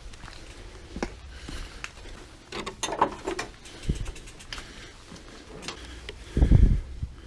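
Mountain bike clicking and rattling as it is moved along, its freewheel hub and drivetrain ticking in irregular bursts, thickest about three seconds in. Near the end comes a heavy, low thump.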